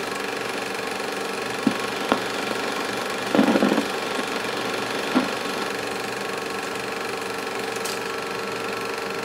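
Film projector running on after the film has run out of the gate: a steady mechanical whir and chatter. A couple of sharp knocks come about two seconds in, a short louder clatter at about three and a half seconds, and another knock near five seconds.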